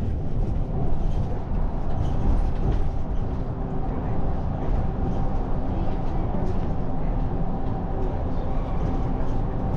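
Steady low rumble of a moving vehicle, even in level throughout, with a faint steady hum.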